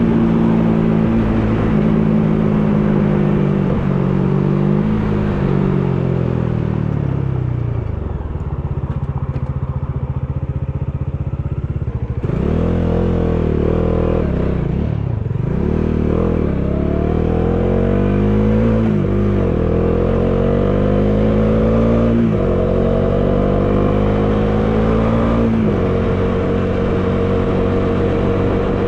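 Bajaj Dominar 400's single-cylinder engine, heard from the rider's position over wind noise. It winds down as the bike slows for the first third. About twelve seconds in it pulls away, the engine note climbing and dropping at each upshift, three or four times, and settles to a steady cruise near the end.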